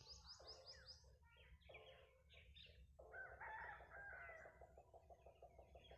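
Near silence with faint bird calls. A rapid run of high chirps stops about a second in, then quieter scattered calls follow, and a soft pulsing call starts about halfway through.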